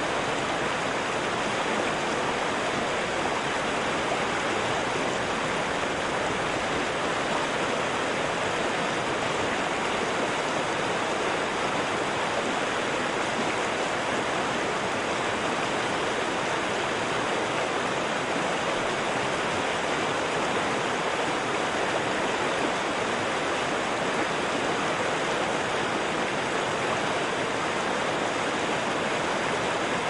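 Steady, even rush of flowing water from a river and waterfall.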